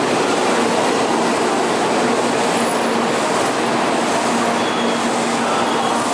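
Shinkansen bullet train rolling slowly along the platform: a steady rushing noise with a faint, even hum underneath.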